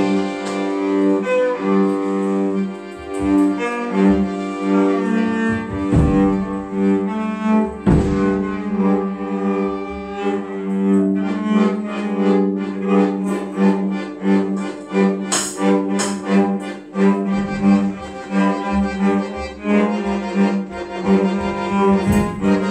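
Cello bowing long sustained notes in a free improvisation, with occasional mallet strokes on a drum kit and a cymbal hit about two-thirds of the way through.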